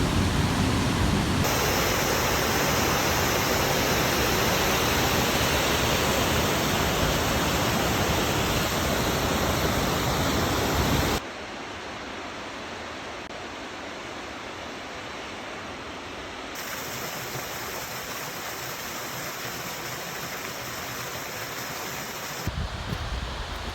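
Waterfall's steady rush of falling water across several cut shots. It is loud at first, drops suddenly to a quieter rush about halfway through, and stays there.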